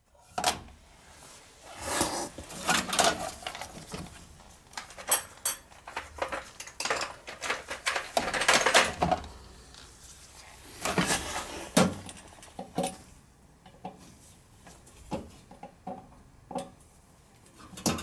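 Irregular metallic clinks, knocks and scrapes of hand tools working at a stuck part on a Beckett oil burner, trying to loosen it.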